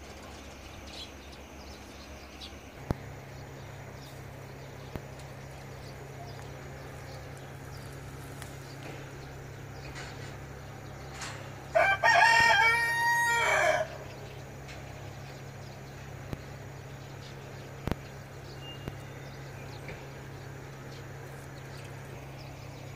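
A rooster crows once, a pitched call about two seconds long, near the middle. A steady low hum and two sharp clicks lie beneath it.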